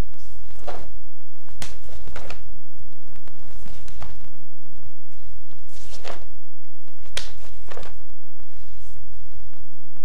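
Karate kata movements: several sharp swishes and snaps of the gi and soft thuds of bare feet on the floor as strikes and a kick are thrown, at irregular intervals, over a steady low hum.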